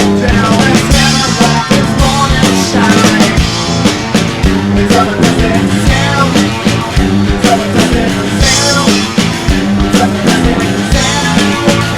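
Rock band music with electric guitars, bass and a driving drum beat.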